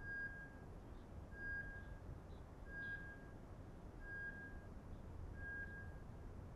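Beeper collar on a bird dog sounding a short, high single-pitch beep about every second and a half, five times, the steady beeping that signals the dog is holding a point. Faint low wind noise runs underneath.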